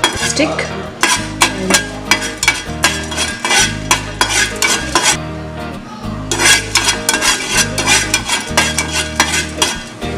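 Whole spices (white pepper, cloves and a cinnamon stick) being stirred as they dry-roast in a pan without oil, with quick clicking scrapes and rattles throughout. Background music plays underneath.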